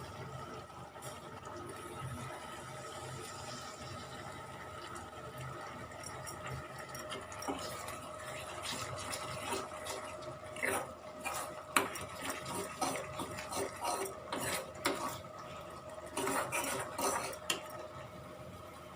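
A spoon stirring and scraping in a pan of reduced ginger-and-sugar syrup as lemon juice is mixed in. It gives scattered clinks and scrapes, busiest from about six seconds in until near the end, over a faint steady hum.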